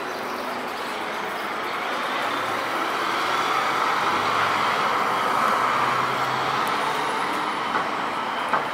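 Scania Citywide hybrid city bus pulling away and driving off, a steady vehicle sound that grows louder through the middle and then eases. A short sharp click comes near the end.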